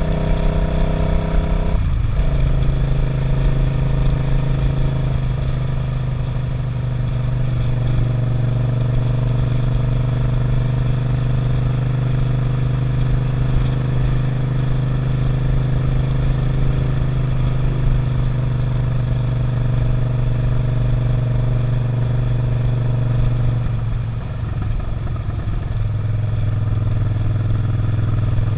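Suzuki SV650 645cc V-twin motorcycle engine cruising, heard from the rider's seat with wind and road noise. The engine note drops suddenly to a lower steady pitch about two seconds in, as on an upshift. It eases off and settles lower again near the end.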